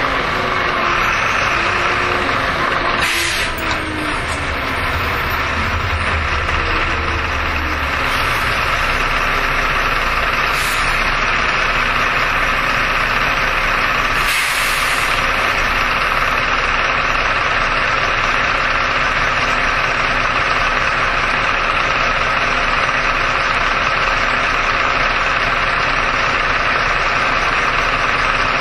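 Jelcz M121M city bus heard from inside: its MAN diesel engine winds down as the bus slows, then idles steadily. Short hisses of compressed air come about 3 seconds in and again about 14 seconds in.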